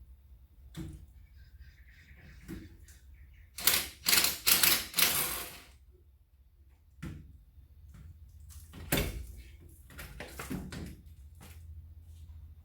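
Hand tools working metal on a car's rear brake assembly: scattered clicks and knocks, with a run of four loud rasping strokes about a third of the way in and a few more near the end.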